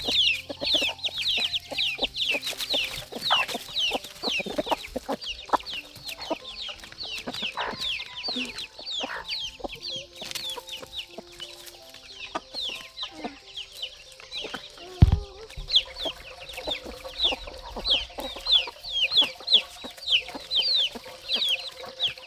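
Chickens: a brood of chicks peeping constantly, with high falling peeps several a second. A single thump comes about fifteen seconds in.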